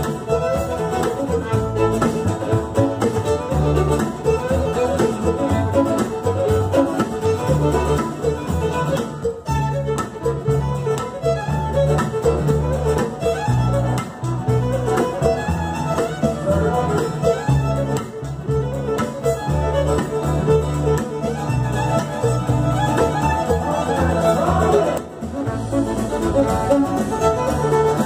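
Live fiddle-led dance band playing a hornpipe set: fiddle carrying the tune over plucked upright bass, guitar and electronic drums, with steady walking bass notes.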